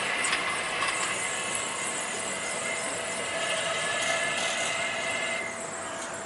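Translohr rubber-tyred tram running, a steady high whine over a mechanical rattle; the whine stops and the sound eases off a little near the end.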